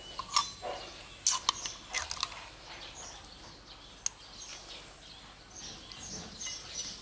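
A metal fork clinking and scraping against the inside of a glass jar of pickled red cabbage, several sharp clicks in the first couple of seconds and one more tick about four seconds in. Faint bird chirps in the background.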